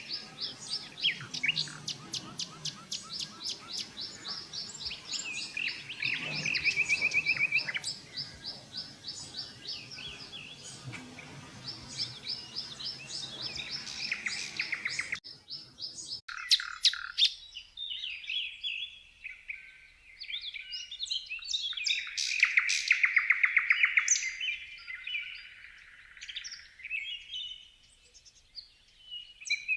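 Songbirds singing with rapid repeated chirps and trills. About 16 s in, the recording changes abruptly to a different bird's song over a quieter background.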